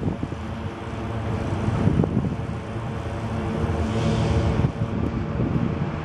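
Stainless-steel tubes of the Aeolus acoustic wind pavilion droning in the wind: many steady tones sounding together, with wind rumbling on the microphone and a brief hiss about four seconds in.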